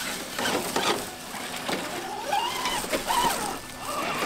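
Electric motor and drivetrain of a 1/10 scale RC crawler whining in short rising-and-falling bursts as the throttle is blipped, with small clicks and cracks from the tyres climbing over twigs and brush.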